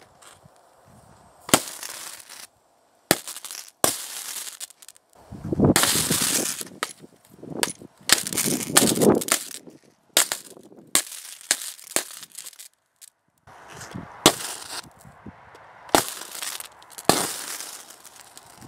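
High-current DC arcing as a copper rod fed by four lead-acid batteries in series (about 48 V) is struck against a laptop: a string of sharp cracks, with two longer crackling bursts of arcing of a second or two in the middle.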